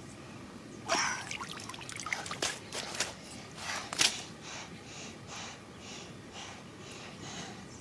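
Water splashing and trickling, with a few sharp clicks in the first half, then a steady run of short swishes about two and a half a second.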